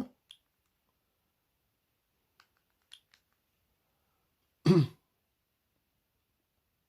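A few faint clicks of the phone's keypad buttons being pressed, then a man's short, loud throat-clearing sound with a falling pitch near the end.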